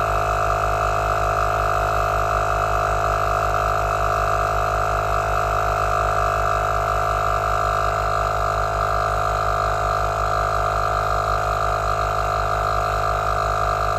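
Heyner Big Air 40L 12V portable tyre compressor running steadily under load, its piston pump pulsing quickly and evenly as it pushes a van tyre toward 3.5 bar (50 psi).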